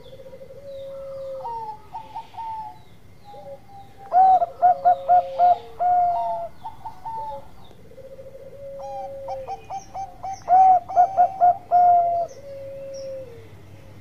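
Zebra dove (Bangkok perkutut) singing its cooing song. Softer rolling coos rise twice into a loud run of about seven quick staccato notes, once about four seconds in and again about ten seconds in. Each run is followed by drawn-out coos that fall in pitch.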